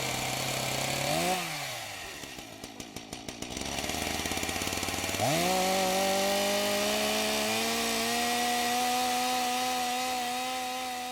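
Chainsaw engine running. It revs briefly about a second in and drops back to a low, sputtering idle. About five seconds in it climbs to high revs and holds steady there, then winds down at the very end.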